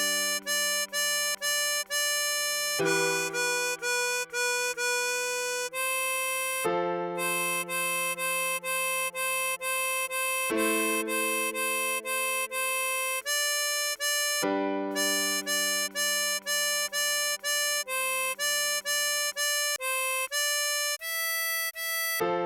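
A 24-hole tremolo harmonica playing a melody note by note, two to three short notes a second. Under it, low sustained accompaniment notes change about every four seconds.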